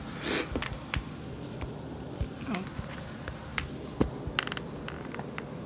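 Handling noises: scattered light clicks and knocks, with a short rustle about a quarter of a second in.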